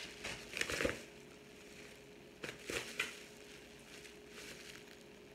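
Plastic bubble wrap crinkling in the hands as a wrapped package is turned over: a few short rustles in the first second and two more about halfway through, with quiet between and a faint steady hum underneath.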